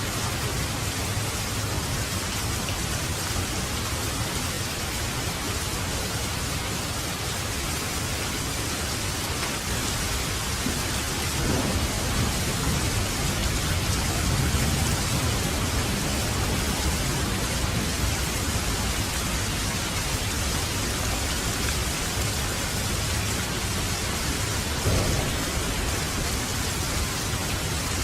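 Steady rain falling, with thunder rumbling low beneath it: a longer roll about eleven seconds in that lasts several seconds, and a shorter one near the end.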